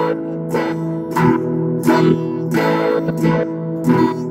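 Electric guitar strummed slowly by a beginner: simple A and E chords struck about every two-thirds of a second, each left ringing.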